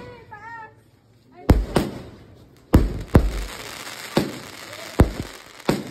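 A 'Dragon' 16-shot consumer fireworks cake firing: about seven sharp bangs at uneven intervals, some in quick pairs, as shells launch and burst, with a hiss between the bangs in the middle.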